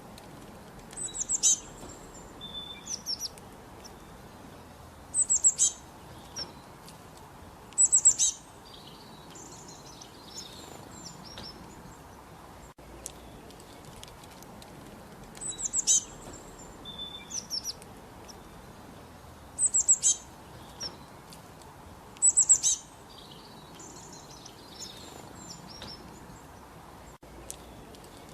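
Small songbirds chirping in quick bursts of rapid high notes, a burst every few seconds with softer calls between, over a faint steady hiss. The same sequence of calls repeats about halfway through, as in a loop.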